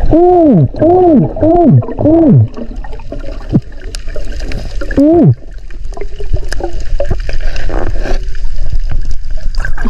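Muffled, voice-like hoots heard underwater: four quick calls in a row, each rising then falling in pitch, and one more about five seconds in. Water gurgling and small knocks lie underneath.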